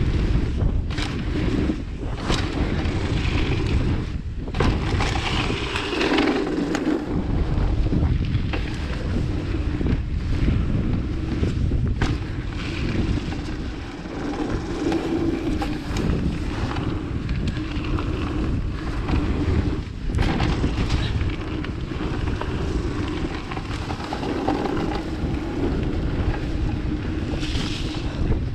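Wind buffeting the microphone over mountain-bike tyres rolling fast on a dirt trail, with frequent short knocks and rattles from the bike over bumps.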